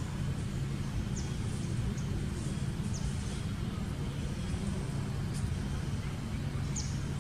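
Outdoor background of a steady low rumble with a constant hum in it, with birds giving short high falling chirps every second or two.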